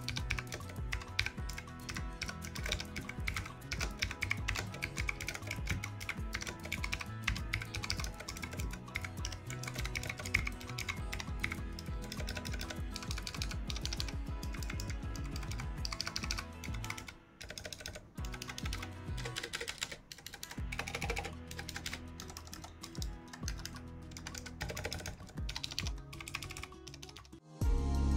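Typing on a Gembird KBW 7 low-profile mechanical keyboard with Outemu Blue clicky switches: a fast, continuous stream of key clicks, with short breaks about 17 and 20 seconds in.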